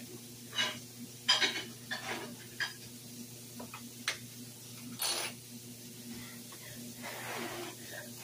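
Dishes and cutlery clinking and clattering now and then in a kitchen, short sharp clinks scattered through, over a steady low hum.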